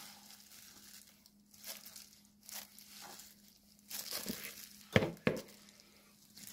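Plastic glove crinkling and soft rustles as handfuls of blanched scallions go into a plastic bowl, with two sharp knocks about five seconds in.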